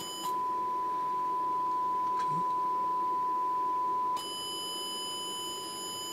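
A steady sine test tone through a TC Electronic Fireworx, switching between clean and harshly distorted as the board around its analog-to-digital converter is probed. It turns clean a moment in, then goes back to distorted at about four seconds. The distortion is the fault being hunted, and it comes and goes with where the probe touches.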